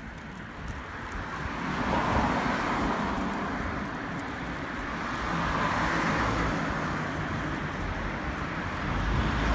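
Cars passing on a street: tyre and engine noise swells about two seconds in and again around six seconds, with a low rumble building near the end.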